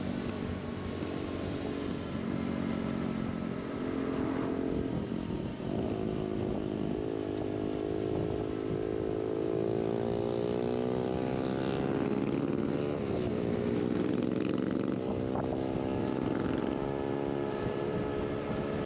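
Motorcycle engine running on the road. Its note slowly rises and falls in pitch with the throttle, climbing for a few seconds about halfway through and then dropping.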